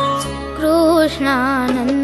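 Swaminarayan devotional bhajan music: a held melody line wavering with vibrato, in two phrases, over a steady low drone.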